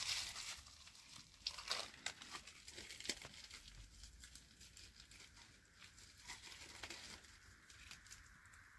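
Faint scattered clicks and scrapes of kitchen utensils being handled, with a few louder taps in the first three seconds. A faint steady hiss comes in near the end.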